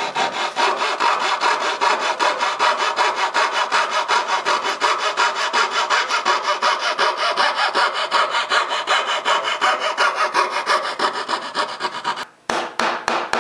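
Fret saw cutting out the waste between dovetails in a wooden board, a steady run of quick back-and-forth strokes. The sawing stops briefly near the end, then goes on in a few more uneven strokes.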